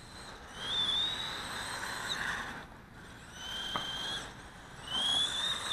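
Brushed electric motor and gearing of a 1/18-scale four-wheel-drive RC short course truck whining in three bursts as the throttle is applied, each whine high-pitched and rising a little before dropping away.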